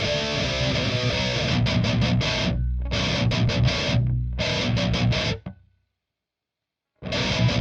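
Heavy metal recording built on high-gain distorted electric guitar, playing chugging riffs with abrupt stop-start breaks in the middle. The audio cuts to dead silence for about a second near the end, then the distorted guitar comes back in.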